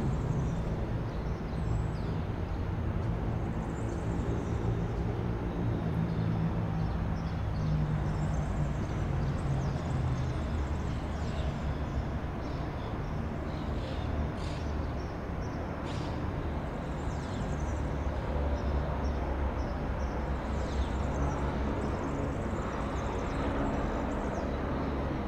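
City street ambience: a steady low rumble of distant traffic, with small birds chirping now and then.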